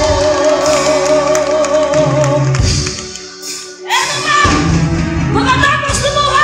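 Live band music with women singing: a long held note with vibrato over electric guitar and drums, a brief drop in loudness about three seconds in, then sung phrases resume.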